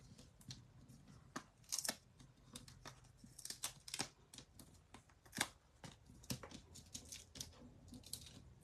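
Cardstock and small paper pieces being handled and pressed down on a cutting mat: soft rustling and crinkling with scattered light ticks and taps at an irregular pace.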